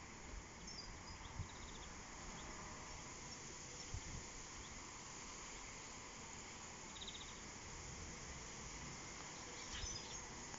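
Faint outdoor ambience: a steady rustling hiss, like trees stirring in the wind ahead of a thunderstorm, with a few short high bird twitters and two soft low thumps, about a second and a half and four seconds in.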